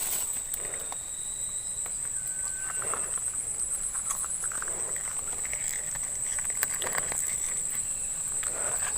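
A steady high-pitched insect drone, slightly pulsing, over soft water sloshing every couple of seconds as a person wades through knee-deep water.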